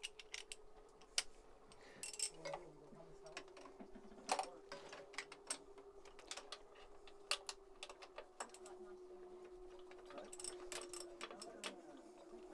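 Irregular clicks and metallic clinks of a socket ratchet with an extension working the mounting bolts of a marine diesel's starter motor, with a cluster of quicker clicks near the end. A faint steady hum runs underneath.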